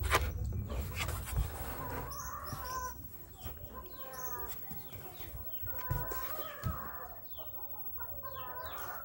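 Chickens clucking in short wavering calls that come in bursts several times, over a low rumble on the microphone with a few knocks during the first couple of seconds.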